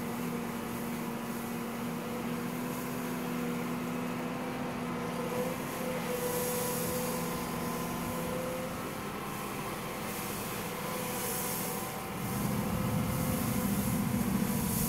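Komatsu PC228US-11 excavator's diesel engine running with a steady hum as the machine works its arm. The engine gets louder about twelve seconds in.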